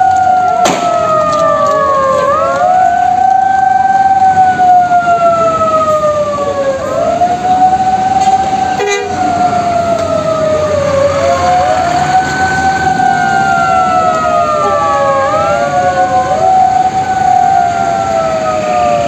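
Two or more vehicle sirens sounding together, out of step, each tone jumping up and then sliding slowly down again every few seconds.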